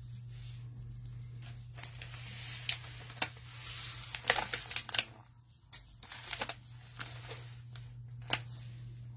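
Foil-wrapped trading-card packs crinkling and rustling as a stack of them is handled and set down on a table, with a few sharp taps among the rustles. A steady low hum runs underneath.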